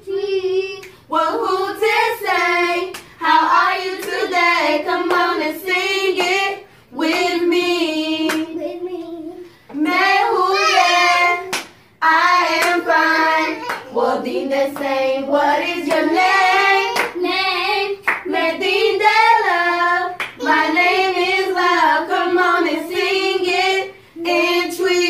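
Young children and a woman singing a short song of Twi words with their English meanings ('Akwaaba, welcome in Twi', 'Me din de…, my name is…'), phrase by phrase with brief breaks between, along with hand clapping.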